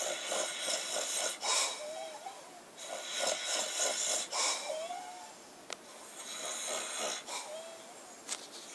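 A man snoring: rasping breaths about every second and a half, with a short whistling note that rises and falls on every other breath.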